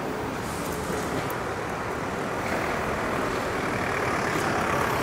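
Street traffic: a steady vehicle noise that grows a little louder from about halfway through.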